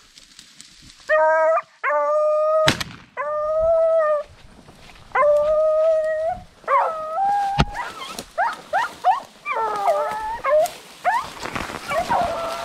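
Rabbit hounds baying as they run a rabbit. At first there are single long, level bays about a second each. From about halfway several dogs overlap with shorter, sliding yelps. There is a sharp knock a few seconds in.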